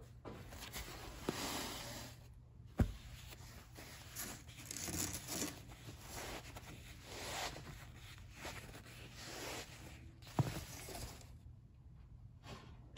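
Rustling and swishing of kimono fabric bolts and their wrappings being handled and unrolled, in uneven strokes, with two sharp knocks, one about three seconds in and one near the end.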